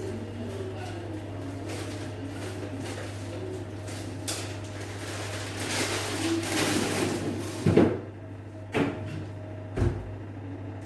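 Rustling and light clatter of a kitchen container being refilled with green peas, then three sharp knocks about a second apart near the end, over a steady low hum.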